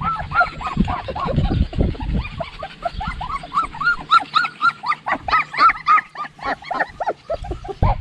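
Goldendoodle puppies yipping and barking, short high-pitched yips several a second from more than one puppy, thickest in the second half. Wind rumbles on the microphone in the first two seconds.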